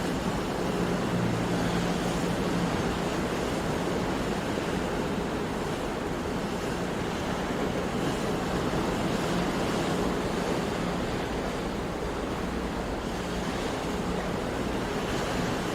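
Sea waves washing in a continuous, steady surf, with a faint low steady hum underneath.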